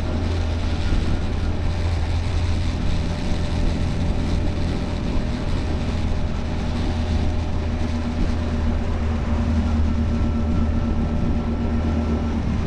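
Motorcycle engine running steadily while riding, with a steady rumble of wind and road noise on the helmet-mounted microphone.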